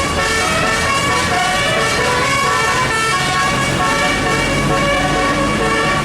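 Tourist bus's telolet horn, a set of electronically sequenced multi-tone air horns, playing a tune as a quick run of short notes that step up and down.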